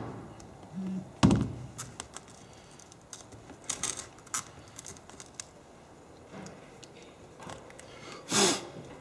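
Scattered clicks, taps and crackles of a cracked iPad 2 digitizer glass being lifted and pulled free of its frame, with a sharper knock a little over a second in.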